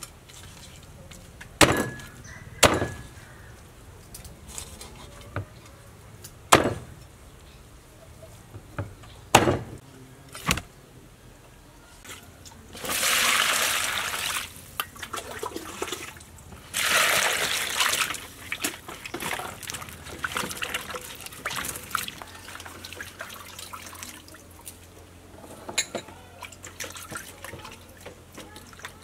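A cleaver chopping through a whole fish on a wooden block, several single sharp strikes a second or more apart. Then water is poured from a plastic container into a steel pot of limes and lemongrass in two long splashing pours, followed by light clinks and handling in a steel bowl.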